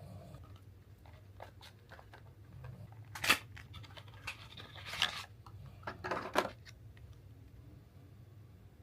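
Makeup packaging being handled and opened: scattered light clicks and taps, with three short, louder rustles of packaging about three, five and six seconds in.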